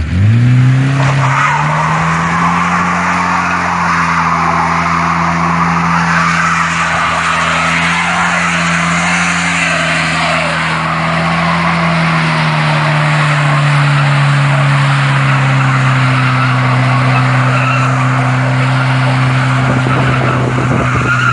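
A car engine revs up in the first second and is held at high revs, easing slightly later on, over continuous tyre squeal and skidding.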